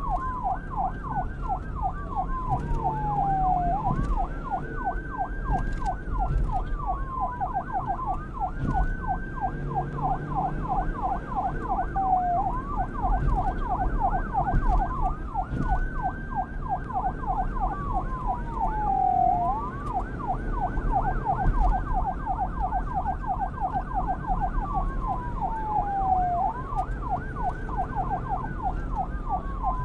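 Police siren in a fast yelp, sweeping up and down several times a second, with a slower wail laid over it that rises quickly and falls away over two to three seconds, repeating every few seconds. A low rumble runs underneath.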